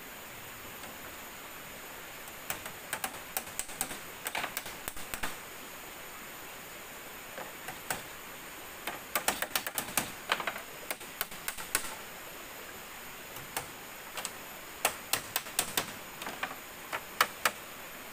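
Hammers nailing split-bamboo floor slats onto a bamboo frame: quick, irregular runs of sharp taps and knocks with short pauses between them, over a steady high hiss.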